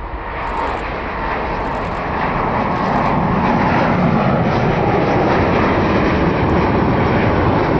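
Airbus A330-900neo's two Rolls-Royce Trent 7000 turbofans at take-off thrust as the airliner climbs out, a steady jet rumble and hiss that grows louder over the first three seconds and then holds.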